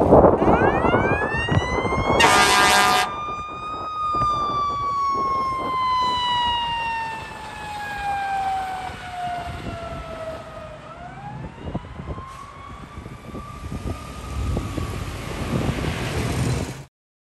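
Fire truck siren (2013 Sutphen Monarch aerial platform) winding up, then slowly falling in pitch for several seconds before rising and falling again, over the truck's engine rumble. About two seconds in comes a short, loud horn blast. The sound cuts off suddenly near the end.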